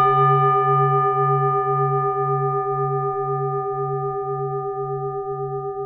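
A singing bowl struck once and left ringing, slowly fading. Its low tone wavers about twice a second, with several higher tones sounding above it.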